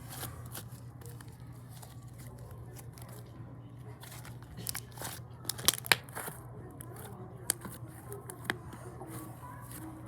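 Slime being squished and pulled by hand, with scattered crackling clicks and a few sharp pops, the loudest pair about halfway through, over a steady low hum.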